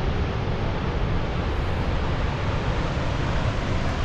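Steady rushing of Tower Fall's water, mixed with wind buffeting the microphone.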